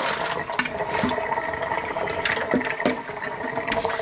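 Tap water running from a kitchen faucet into a stainless steel sink while a glass bowl is rinsed, with a few short clinks and knocks of the bowl against the sink.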